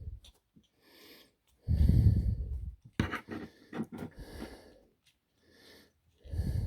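Breath puffs into a close microphone, then a run of quick light clicks and rattles about three seconds in: a plastic action figure's joints being moved.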